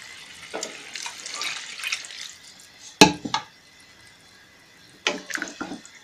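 Water poured into a pan of simmering curry, splashing for the first couple of seconds. A single sharp clank about three seconds in, then a spatula scraping and stirring through the curry near the end.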